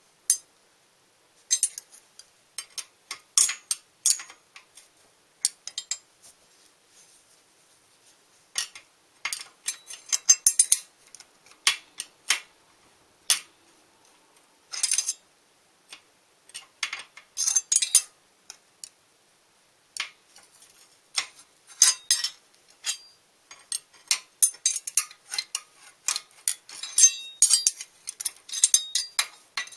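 Irregular metallic clicks and clinks, in clusters, of hand tools and metal parts being handled during bicycle bottom-bracket and crank work.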